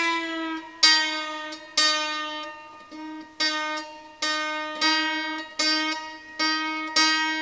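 Hammered dulcimer treble strings plucked by hand a little more than once a second, each note on the same pitch ringing out and fading. This is the new replacement string being tuned up to E to match its course-mate, with a tuning wrench on the pin.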